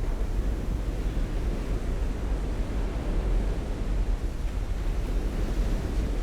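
Steady rush of surf with wind buffeting the microphone, a deep rumble under the noise.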